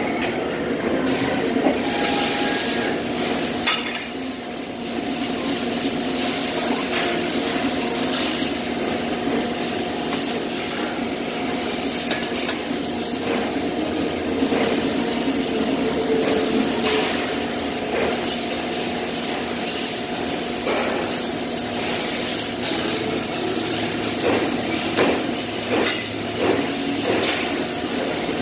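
Steady machine hum of a sheet-metal workshop, with frequent metallic clinks and knocks of small steel parts being handled at a press brake.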